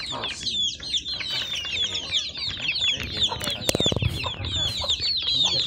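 A flock of young chicks peeping continuously, many high, thin cheeps overlapping. About three and a half seconds in there is a brief, rapid low flutter.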